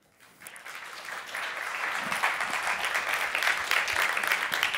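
Audience applauding, swelling over the first second or so, then steady.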